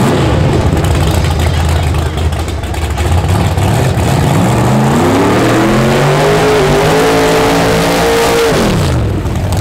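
The 1969 Camaro drag car's engine rumbles at low revs, then revs up steeply from about halfway through and holds high revs through a burnout as the rear tyres spin and smoke. The revs drop off sharply near the end.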